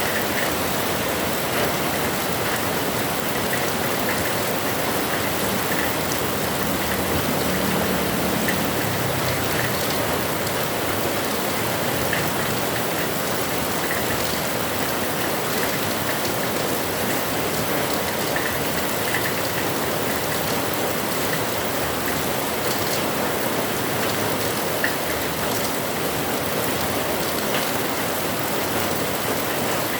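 Heavy rain falling steadily, with scattered ticks of drops striking close by.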